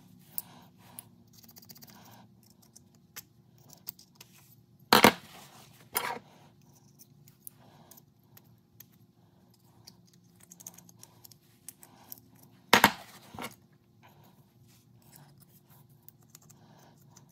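Steel pick scraping and poking at a monkey wrench to clear out old grime, with small metal ticks and scratches throughout. There are louder metal clinks twice, a pair about five seconds in and another pair near thirteen seconds.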